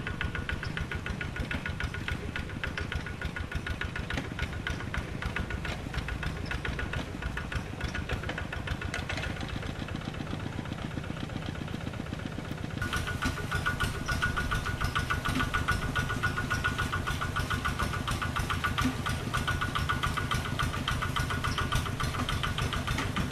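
Single-cylinder diesel engine of a Quick G3000 Zeva two-wheel tractor running steadily with a rapid knocking beat; about halfway through it gets louder and harsher.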